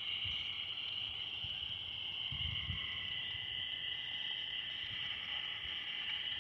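Steady high-pitched chorus of crickets chirring on a summer night, unbroken throughout.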